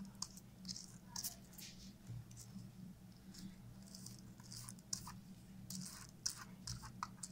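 Silicone pastry brush stroking butter over sheets of butter paper: faint, irregular soft rustles and light scratches of the bristles and paper.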